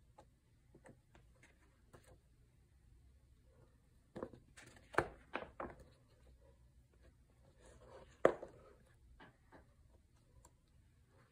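A glossy paper rulebook being handled and its pages turned. It makes soft rustles and small ticks, with a quick run of sharp paper crackles about four to six seconds in and another sharp crackle about eight seconds in.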